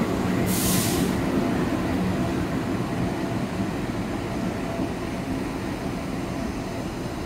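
Two coupled CC 206 diesel-electric locomotives passing at low speed: a steady diesel engine rumble with wheels on the rails, easing slowly. A short hiss sounds about half a second in.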